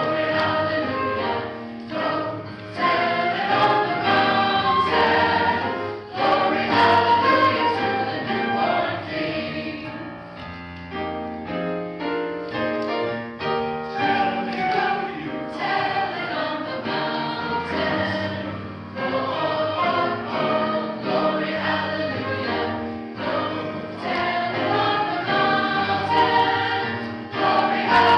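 Church choir singing a Christmas-season song with musical accompaniment; about ten seconds in the voices ease off into a quieter passage of short repeated notes, then the full choir returns.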